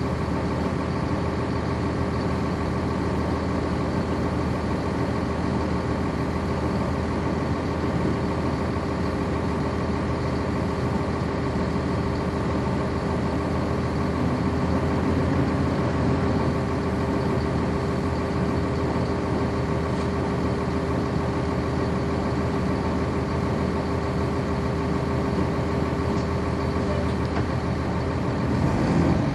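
The Cummins ISC inline-six diesel of a 1999 NovaBus RTS transit bus, heard from inside the bus, running at a steady, unchanging pitch. Near the very end the engine note begins to rise.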